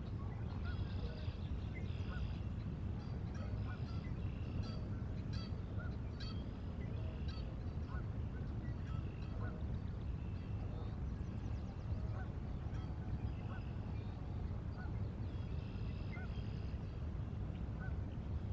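Birds calling over a steady low rumble of wind and water. Many short calls come in bouts in the first half and again near the end, with scattered small chirps between.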